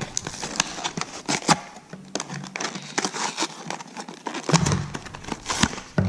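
Clear plastic blister packaging and its paper backing crinkling and tearing as they are pulled apart by hand, in an irregular run of crackles and snaps.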